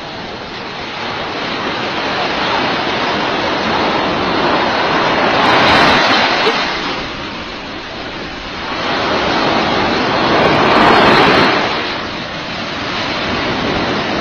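Surf on a beach: waves rolling in and breaking in a steady rush, swelling loudest twice, about six and about eleven seconds in.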